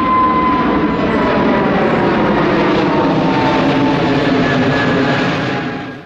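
Airbus A320neo jet airliner climbing out after take-off: steady, loud jet engine noise with a high whine that slowly falls in pitch, cut off suddenly near the end.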